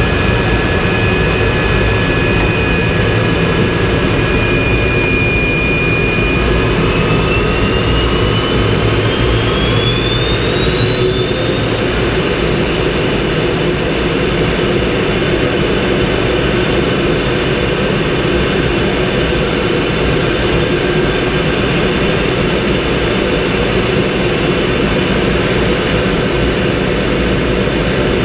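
MiG-15 jet engine running in flight, heard inside the cockpit as a loud steady rush with a high turbine whine. About six seconds in the whine begins to climb in pitch, and after about fifteen seconds it holds at the higher note as the engine speeds up.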